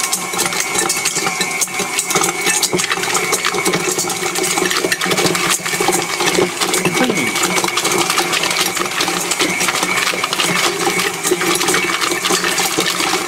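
KitchenAid stand mixer motor running steadily while its beater churns paper, pencil and plastic calculator pieces, which clatter and rattle without pause against the stainless steel bowl.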